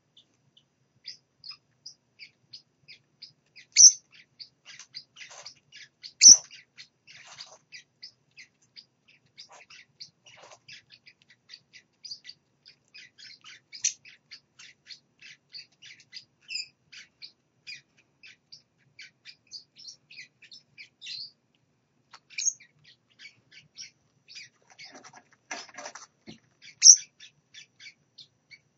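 Baby parrot chicks peeping: a constant stream of short, high chirps several times a second, broken by a few louder squeaks.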